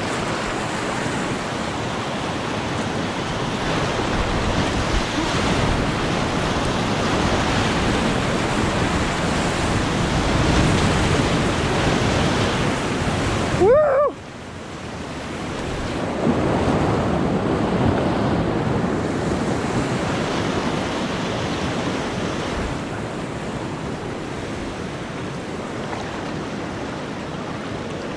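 Rushing whitewater of the Gunnison River running through a rapid, with wind on the microphone. About halfway through, a short pitched sound rises, and then the rush drops off for a moment before building again.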